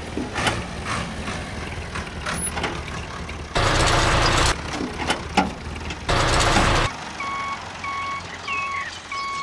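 Small clicks and knocks of model parts, two short loud bursts of truck-like noise a couple of seconds apart, then a vehicle reversing alarm beeping steadily, nearly twice a second, starting near the end.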